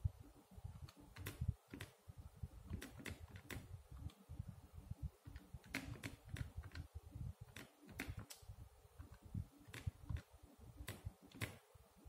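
Keys of a Casio fx-991ES scientific calculator being pressed one after another as an expression is entered: about twenty light, irregularly spaced clicks over a faint low rumble.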